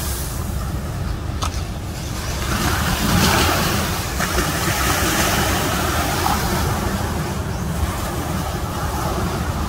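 Surf from waves breaking offshore: a steady wash of noise over a low rumble, swelling a little about three seconds in.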